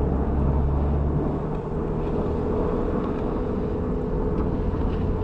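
Jeep Wrangler driving slowly on snow, a steady engine and road hum, with a deep low rumble that drops away about a second and a half in.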